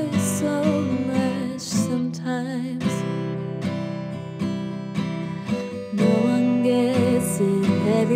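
A song played on strummed acoustic guitar, with a wavering, pitched melody line above it that looks like a sung voice.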